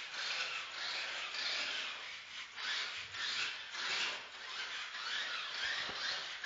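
Toy RC car's small electric drive motor and plastic gearbox running with a rasping whir that swells and eases over and over as the Arduino-controlled car drives itself.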